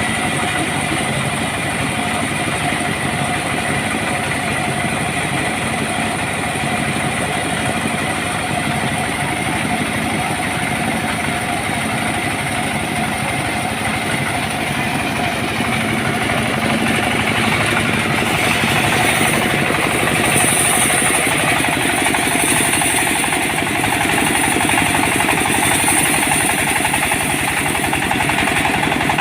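Engine of a homemade sawmill running steadily. About halfway through it grows louder and harsher with more high-pitched hiss.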